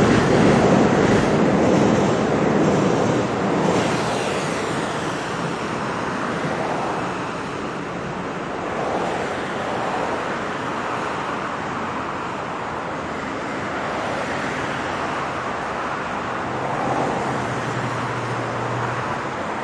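The last cars of an electric multiple-unit train running over a viaduct, the rumble fading away over the first few seconds. Then steady road traffic noise.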